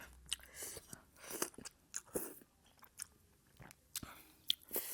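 Close-up mouth sounds of someone eating thukpa noodle soup: wet chewing and lip smacks in short, irregular bursts.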